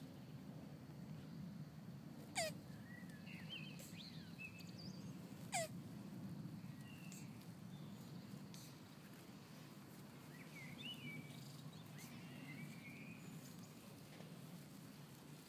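Male tortoise's mating squeaks as he mounts the female: two short, sharp calls about three seconds apart in the first half, each falling steeply in pitch. Faint bird chirps and a low steady outdoor hum lie underneath.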